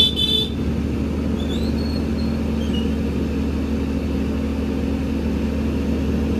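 A large vehicle's engine idling, a steady hum, with a short high-pitched sound lasting about half a second at the start.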